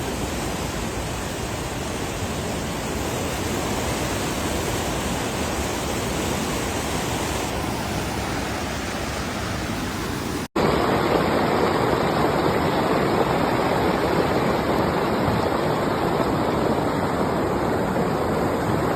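Steady rushing of fast-flowing floodwater, with a brief dropout about ten seconds in, after which the rushing comes back louder.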